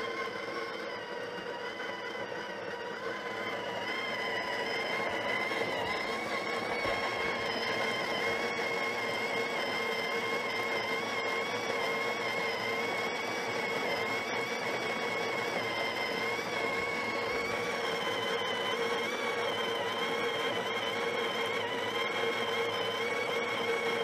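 The built-in conical burr grinder of a Breville Barista Touch Impress espresso machine grinding coffee into the portafilter: a steady motor whir with a slightly wavering pitch. The grind runs on a timer that sets the dose.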